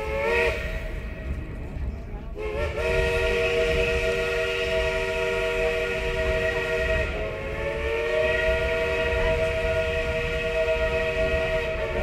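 Steam locomotive's chime whistle: a short toot, then a long blast of several notes sounding together, held for about ten seconds and dipping slightly in pitch about seven seconds in. Under it runs the low rumble of the moving train.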